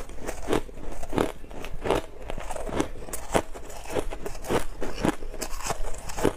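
Powdery frozen ice being bitten and chewed, a steady run of crisp crunches about two a second.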